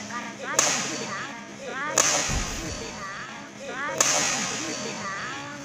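Badminton racket strikes on the shuttlecock: three hard, sharp cracks over about three and a half seconds, each ringing on in the hall. Between the hits, short squeaks of shoes on the court floor.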